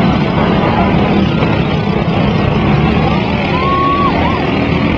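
Several riding lawn mower engines running together in a demolition derby, a dense steady mechanical din, with a brief high-pitched tone about three and a half seconds in.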